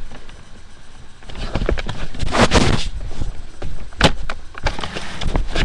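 Handling noise from a laptop's built-in microphone as the laptop is carried and set down: rustling and scattered knocks, with one loud rustle about two and a half seconds in and a sharp knock about four seconds in.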